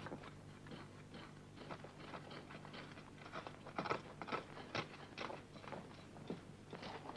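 Faint, irregular crunching and scraping of soil being dug and shifted by hand: a loose run of short scrapes and crunches over a low steady hum.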